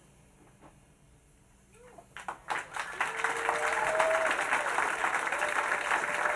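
Near quiet for about two seconds, then an audience breaks into applause, the clapping swelling quickly and staying loud, with a few shouted cheers over it.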